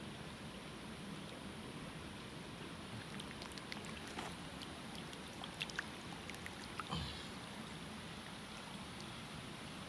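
Shallow water trickling and sloshing, with a few brief splashes and clicks between about three and seven seconds in.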